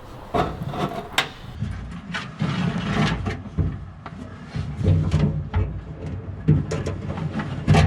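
Irregular knocks, clunks and scrapes of metal parts being handled and fitted by hand, as the fuel tank and electric fuel pump fittings go into a classic Mini's boot.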